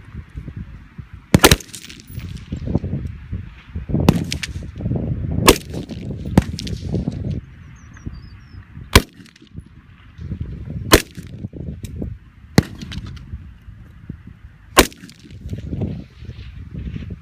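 Heckler & Koch MR556A1 5.56 mm semi-automatic rifle fired one shot at a time: about nine sharp, loud shots spaced one to three seconds apart.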